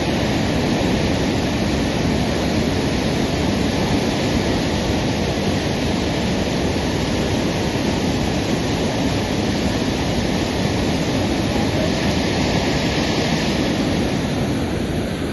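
Loud, steady rush of water, an even noise with no breaks, from the flash flood and torrential rain.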